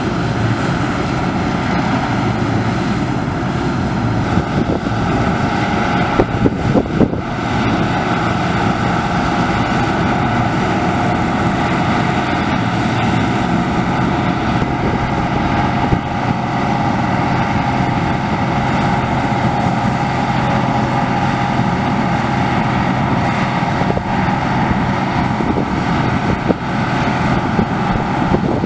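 Deutz-Fahr 4068 HTS combine harvester running steadily while combining winter barley: a constant engine and machinery drone with a steady high whine. A short spell of knocks and rattles comes about six seconds in.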